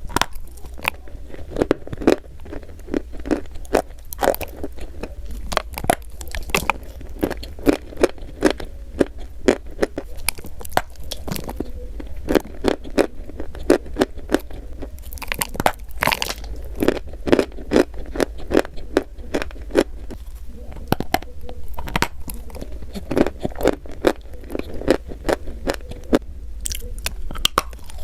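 Chalk being bitten and chewed close to the microphone: a dense, uneven run of sharp crunches and crackles, with a steady low hum underneath.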